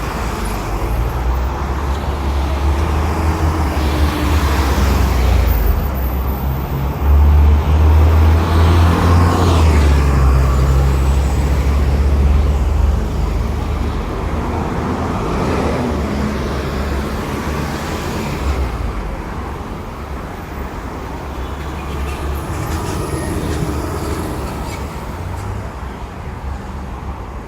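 Road traffic: buses and cars driving past close by, with a steady low engine rumble and the noise of more distant traffic. The rumble is loudest about a quarter to halfway in, as a heavy vehicle passes, then eases off.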